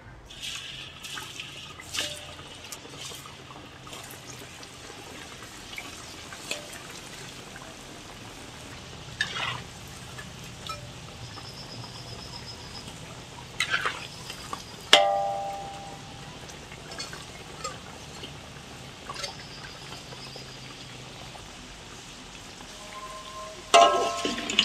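Slices of cassava gembus deep-frying in hot oil in a wok: a steady, quiet sizzle. A few clicks and knocks of the metal spatula against the wok, the loudest about fifteen seconds in with a short metallic ring.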